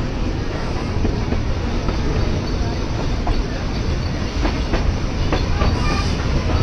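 Puffing Billy narrow-gauge steam railway carriages rolling along the track, wheels clicking over the rail joints at irregular intervals over a steady rumble.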